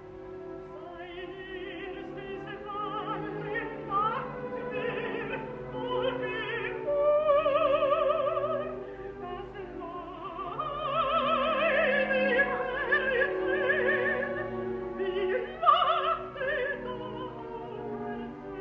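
A woman's operatic voice singing long, held high notes with wide vibrato over a full orchestra, swelling louder in the middle.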